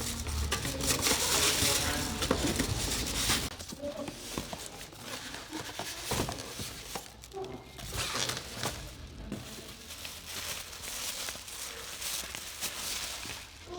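Packaging being handled during an unboxing: crinkling and rustling of plastic wrap and cardboard, with many small clicks and scrapes.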